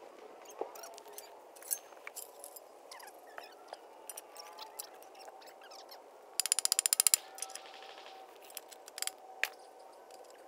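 Scattered metallic clinks and taps from steel greenhouse framing tubes and hardware being handled. About six seconds in comes a quick run of about ten loud, evenly spaced clicks from a ratchet wrench.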